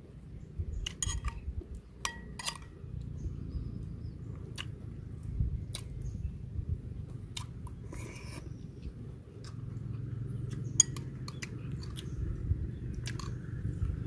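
A person chewing food close to the microphone, with a metal spoon clinking and scraping against a ceramic bowl many times at irregular intervals.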